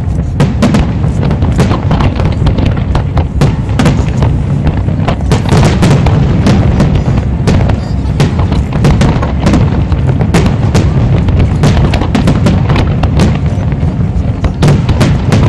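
Fireworks barrage: shell bursts and crackles going off several times a second without a break, over a constant deep rumble.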